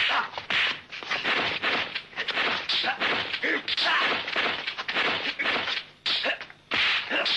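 Kung fu film fight sound effects: a fast, irregular run of punch and kick impacts, several a second, with short vocal cries between them.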